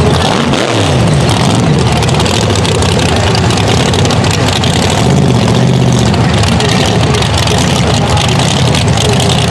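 Supercharged V8 drag-car engine held at high revs during a burnout, the rear tyres spinning and smoking. Its pitch swings up and down in the first second, then holds steady.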